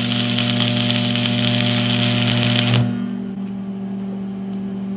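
Stick-welding arc crackling and sizzling at 90 amps as a bead is run on steel plate, cutting off suddenly about three seconds in when the arc is broken. A steady hum carries on after.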